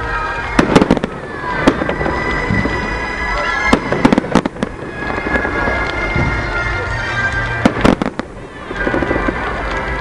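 Fireworks going off: sharp bangs in clusters about a second in, around four seconds in and just before eight seconds in.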